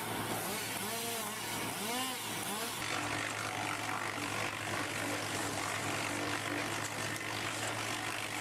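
Heavy diesel machinery running with a steady low engine hum, overlaid in the first few seconds by repeated rising-and-falling whines. The sound changes abruptly to a different mechanical running noise about three seconds in.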